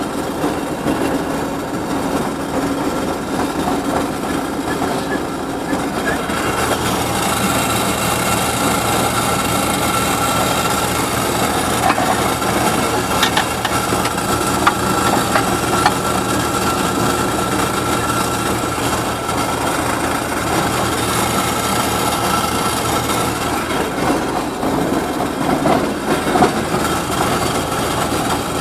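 Heavy diesel engines of a Hitachi FH130-3 excavator and a Belarus 862 tractor running under load while pulling a mole plough through the ground. About six seconds in the engine note picks up and stays louder, with a few sharp clanks.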